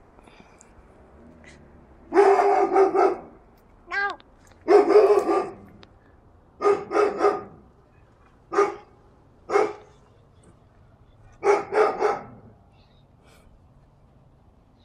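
A big dog barking repeatedly in runs of one to four barks, with short pauses between the runs.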